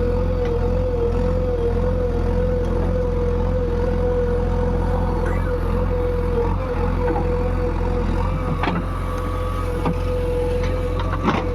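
JCB 145 excavator's diesel engine running steadily under a constant high whine, with a few sharp knocks about two-thirds of the way through and again near the end.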